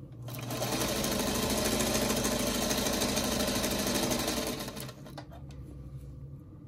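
Singer Featherweight sewing machine stitching a seam at a steady speed for about four seconds, then slowing and stopping.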